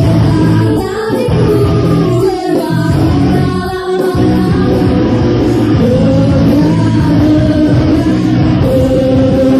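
Loud music: a song with singing over instruments, playing without a break.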